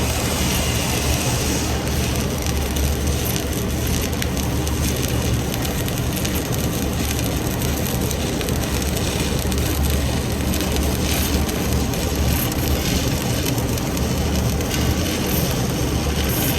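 Electric arc welding: the arc crackling and sizzling continuously, over a steady low hum.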